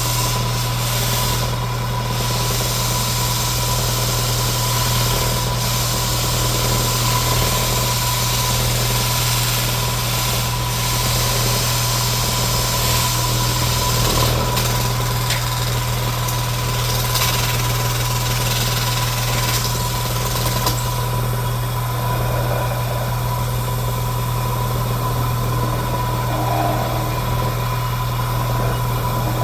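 An electric power sander's motor running steadily, with a constant hum and whine. The upper hiss changes about two-thirds of the way through.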